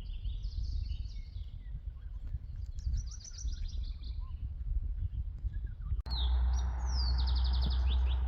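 Small songbirds singing: a series of chirps and quick descending trills, over a low rumble of wind on the microphone that suddenly grows louder about six seconds in.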